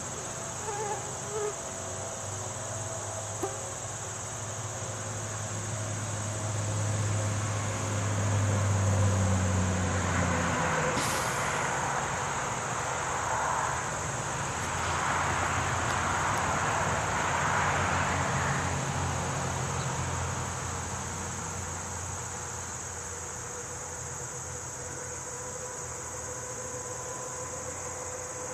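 Steady, high-pitched chorus of crickets. From about six seconds in, a low rumble and then a rushing noise from a passing vehicle swell up and fade again by about twenty seconds.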